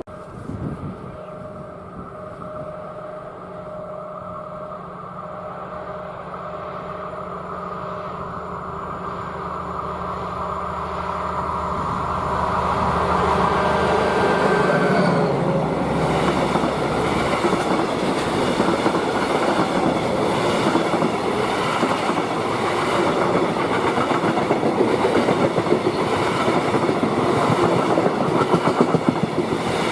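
A freight train approaching and passing: the locomotive's steady hum grows louder for about fifteen seconds, then the wagons roll past with a loud, rhythmic clatter of wheels over rail joints.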